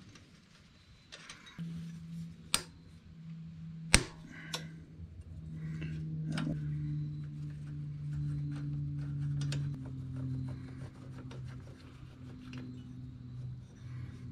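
Light metallic clicks and rattles as the decompression cable and its fitting are worked loose by hand at a Honda ATC 200S cylinder head, with sharp clicks about two and a half and four seconds in. Under it, quiet background music with low sustained notes that change pitch twice.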